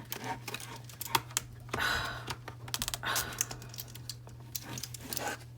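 Scattered plastic clicks and scraping as a card is worked into the seam of an Akko 3068 V2 keyboard's plastic case to pry its snap-fit clips loose, with a longer scrape about two seconds in and another about three seconds in.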